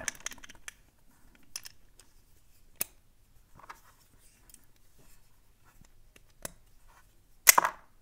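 A padlock shim scraping and clicking as it is worked in between the shackle and body of a fingerprint padlock, pushing aside the spring-loaded locking lugs so the shackle can be pulled open. Faint scattered clicks, then a louder burst of sharp metal clacks near the end.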